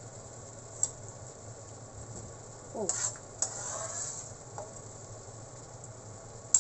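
Cooked squid being scooped out of a frying pan of broth with a wire-mesh strainer into a stainless steel bowl: a few metal clinks of the strainer against pan and bowl over a light sizzle of the hot broth. A sharp clink near the end is the loudest.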